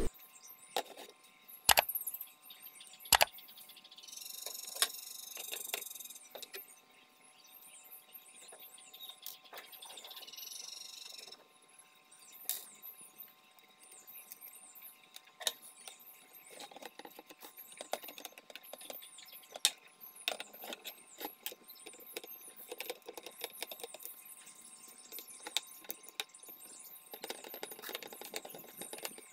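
Handling of a plastic electronic-scale housing: three sharp knocks in the first few seconds, then many small clicks, taps and rustles as a circuit board is fitted and a screw is driven in with a screwdriver.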